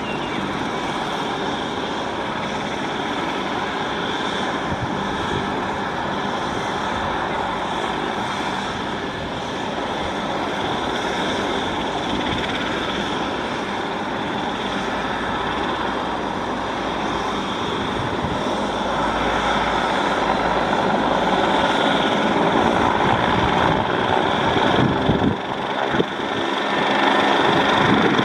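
Eurocopter BK117 twin-turbine helicopter running on the pad before lift-off, rotor turning: a steady turbine whine over rotor noise. It grows louder about two-thirds of the way through.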